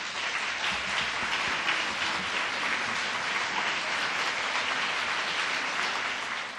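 Audience applauding steadily, then cut off abruptly near the end.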